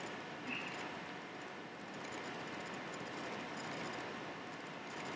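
Low, steady hiss of room tone.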